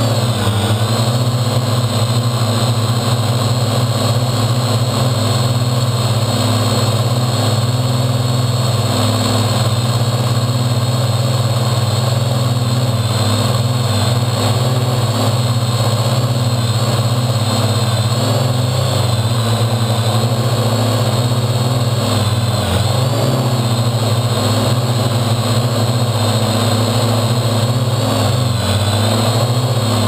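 Parrot quadcopter drone's electric motors and propellers running in flight, heard up close from a GoPro set into the drone's top: a steady buzzing hum with a high whine over it. The pitch shifts slightly a few times as the drone adjusts its flight.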